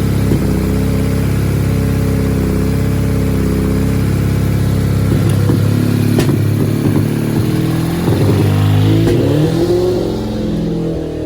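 Kawasaki ZXR400 four-cylinder engine running on its Keihin carburettors: a steady idle, then the throttle is blipped and revved up and down from about halfway through, dropping back toward idle near the end.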